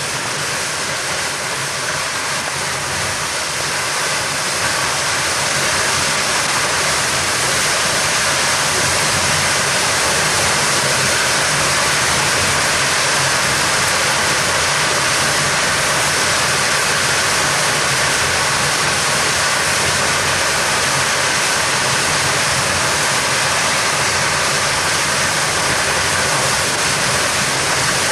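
Large waterfall: a dense, steady rush of falling water, growing louder over the first few seconds and then holding even.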